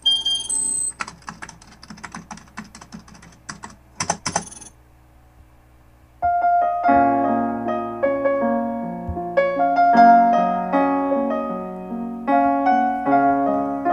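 A rapid clatter of clicks for the first few seconds. After a short lull, an electric keyboard starts playing a melody over chords, the instrumental intro of a romantic Latin pop song.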